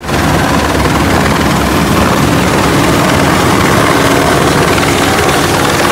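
Light helicopter hovering low overhead: loud, steady rotor and engine noise with a fast low beat of the blades.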